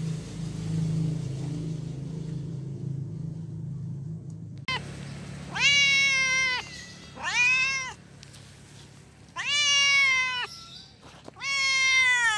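A cat meowing four times, each meow about a second or more long, rising and then falling in pitch, starting about five seconds in. Before the meows there is a low steady hum.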